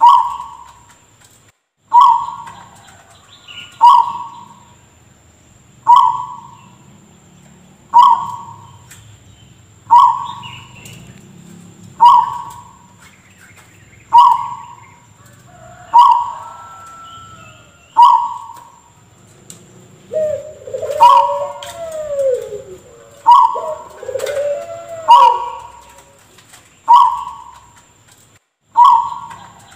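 Zebra dove (perkutut) giving an odd, cough-like call about every two seconds, each call sharp at the start and fading quickly. Other bird calls that glide up and down join in briefly about two-thirds of the way through.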